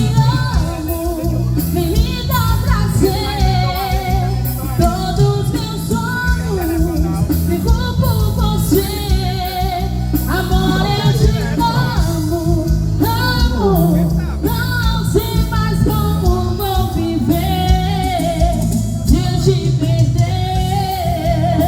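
A live performance of a romantic Portuguese-language pop love song. A singer's voice carries the melody over band backing with a steady beat and bass.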